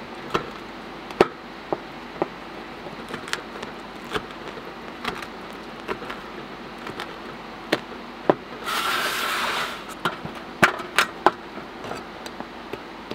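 Large knife cutting a pizza into slices on a wooden cutting board: scattered sharp knocks as the blade comes down on the board, and a scraping crunch of about a second through the crust a little past the middle.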